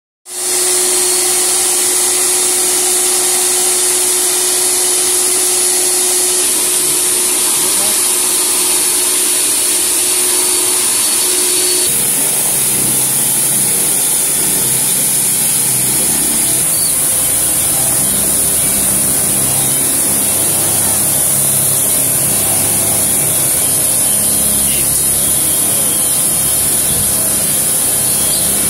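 Car vacuum cleaner running steadily with a high motor whine as its hose sucks at a car's floor. About twelve seconds in it gives way to a pressure washer: the pump running with a low pulsing under the hiss of the water jet spraying the car's body.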